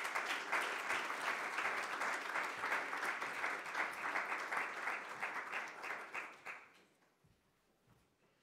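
Audience applause, a dense patter of many hands clapping, dying away about six and a half seconds in and leaving a quiet room.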